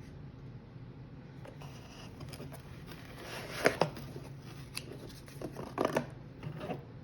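Handling noises from unpacking a wine box: light rustling with scattered sharp clicks and taps, the loudest a quick pair a little over three and a half seconds in and another cluster about two seconds later.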